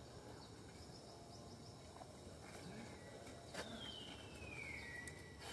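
Faint outdoor ambience with a single high whistled bird call that slides down in pitch near the end, and a couple of soft clicks.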